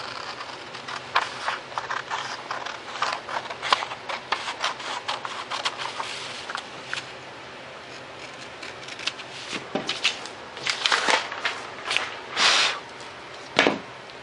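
Scissors snipping through a paper plan sheet in a run of short, irregular cuts, with paper rustling and a few louder handling rustles in the second half.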